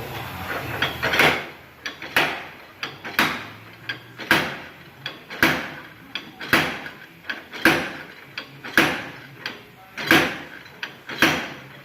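Hammer blows on a rust-seized rear wheel hub, about ten strikes roughly a second apart, each with a short ring, knocking the hub loose from the brake backing plate.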